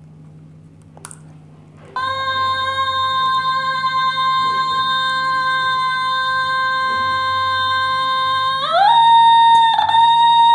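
About two seconds in, an original basic-model Otamatone starts a single steady electronic note and holds it for about six seconds. It then slides up about an octave and holds the higher note, with a brief dip in pitch near the end.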